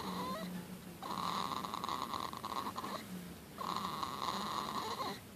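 A baby boy snoring in his sleep: drawn-out snores, each about two seconds long, with short pauses between them. There are two full snores, plus the end of one just as the sound begins.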